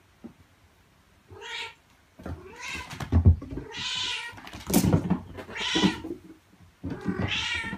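Cat meowing repeatedly, about five meows of half a second to a second each, starting a little over a second in, with a low thump about three seconds in.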